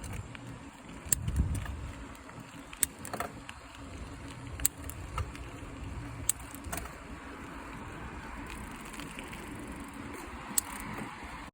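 Freshly lubricated Shimano trigger shifter clicking as it is worked through the gears, now catching and shifting properly: sharp single clicks a second or two apart over a low steady background rumble.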